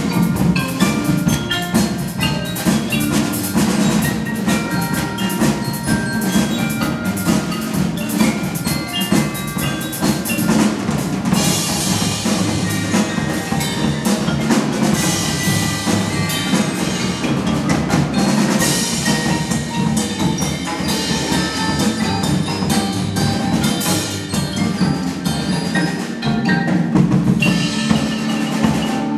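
Percussion ensemble playing a rock arrangement, with marimbas and other mallet keyboards carrying the tune over a drum kit.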